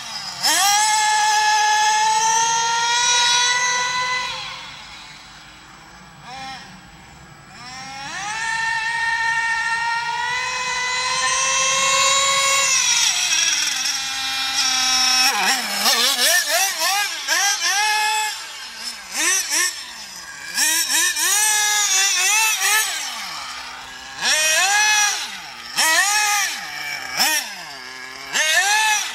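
Small nitro engine of a Carson Specter 1:8 RC buggy revving hard, its high whine rising in long sweeps and fading away for a few seconds about five seconds in before coming back. From the middle on it gives a quick string of short throttle blips, each a brief rise and fall in pitch.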